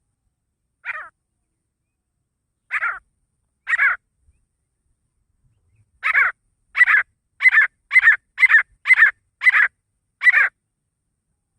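Grey francolin (desi teetar), a male, giving its loud, harsh call: three separate notes, then a quicker run of about eight at roughly two a second.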